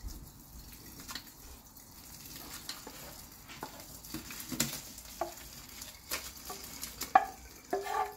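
Hot water from a pot of boiled spinach being poured off into a stainless steel sink, a steady low splashing hiss, with a wooden spoon knocking and scraping against the steel pot several times; the sharpest knock comes about seven seconds in.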